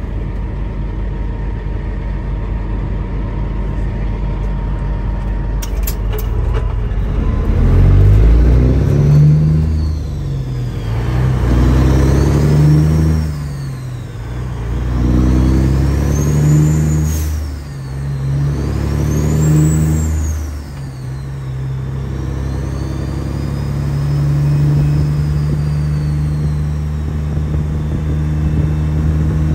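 Semi truck's Caterpillar C15 diesel engine pulling away from a stop and accelerating up through the gears. The pitch climbs and drops back at each of about four shifts, with a turbo whistle rising and falling over it. It then settles into a steady cruise.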